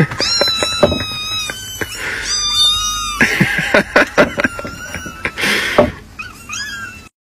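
Young kittens mewing: two long, high, steady mews in the first three seconds and shorter mews near the end. Between them come knocks and scrabbling as the kittens crawl out of a plastic watering can.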